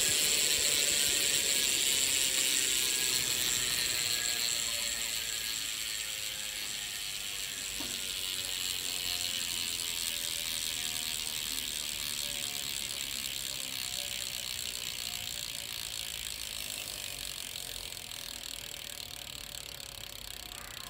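BSD Revolution freecoaster BMX rear hub freewheeling as the wheel spins, a fast clicking buzz whose pitch slowly falls and fades as the wheel spins down.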